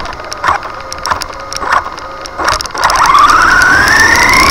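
Electric RC car's brushless motor and geartrain (3650–3300 kV motor on 3S, 60 A ESC) blipping on short throttle bursts about every half second, then a long whine that climbs steadily in pitch from about three seconds in as the car accelerates. Rattling clicks from the loose buttons of the onboard camera run through it.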